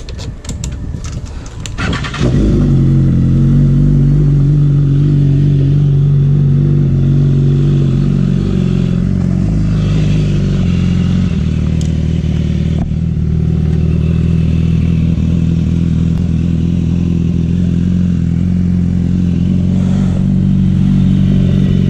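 A few clicks and knocks, then about two seconds in a vehicle engine comes in abruptly and runs steadily to the end, its pitch shifting slightly now and then.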